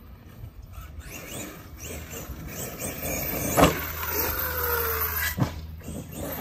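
Arrma Kraton EXB 1/5-scale electric RC truck driving across grass, its motor and tyres getting louder as it speeds up. Two sharp knocks, the loudest about three and a half seconds in and another near the end, with a short falling whine between them.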